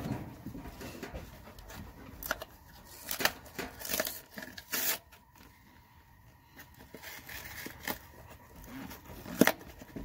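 Cardboard box being handled and its flap torn open: irregular rustles, scrapes and rips, with a sharp rip near the end.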